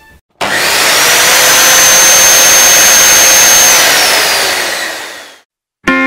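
Electric motor with a high whine over a loud rushing hiss. It spins up quickly, runs steadily for about three seconds, then winds down and stops.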